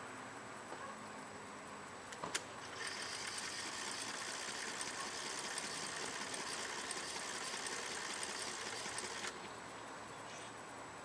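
A sharp click, then a steady high-pitched hiss that starts about three seconds in, runs for about six seconds and cuts off suddenly.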